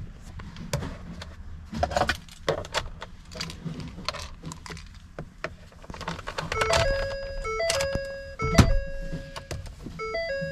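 A key jangling and clicking in the ignition for the first several seconds, then a simple melody of pure electronic tones starts about six and a half seconds in, with a sharp click partway through.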